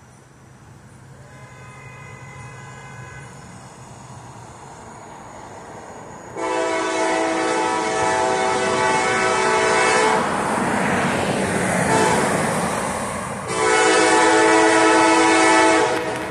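Locomotive air horn sounding as a light engine approaches: a faint blast early on, then loud, long steady blasts from about six seconds in, with a noisier stretch between the last two blasts.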